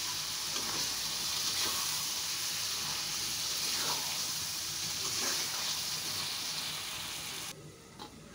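Beef pieces in a spiced oil masala sizzling in a karahi while being stirred and scraped with a spatula, the sautéing (bhuna) stage of a beef curry. The sizzle drops away suddenly near the end.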